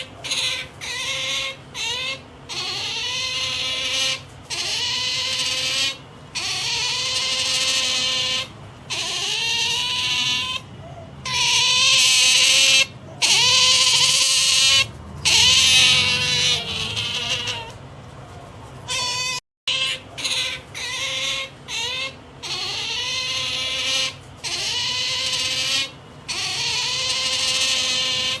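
Pet otter calling over and over in high-pitched, wavering calls, each about a second or two long with short breaks between: the noise it makes while being pampered.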